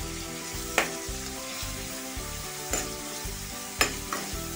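Chopped onions sizzling as they fry in hot oil in an aluminium kadai. A metal spoon stirs them, knocking sharply against the pan three times.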